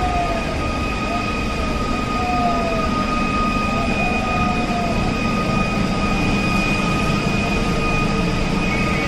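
Launch of a warship down a slipway: a siren sounds one long, steady high note over a loud rumbling noise and crowd shouting, with a few short falling whistle-like calls in the first half.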